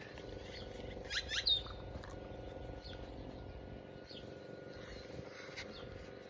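Faint steady hum with two short, high, rising chirps about a second and a half in, and a few faint ticks.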